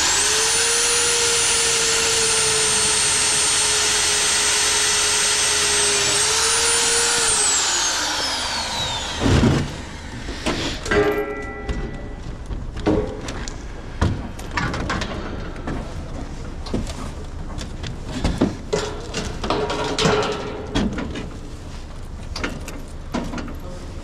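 Milwaukee power drill running at a steady high speed, pressed against a steel bracket, for about seven seconds, then spinning down with a falling pitch. Scattered knocks and clatter of tools and metal parts being handled follow.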